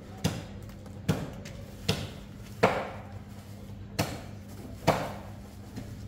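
Repeated chopping or knocking blows, six in all at a little under one a second, each sharp with a short ring, the loudest about two and a half seconds in.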